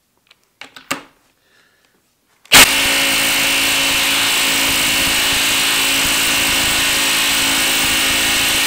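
Ryobi cordless impact driver hammering steadily as it drives a long lag screw into a wet tree stump through an impact socket, the tool working under heavy load. It starts sharply about two and a half seconds in, after a few small handling clicks.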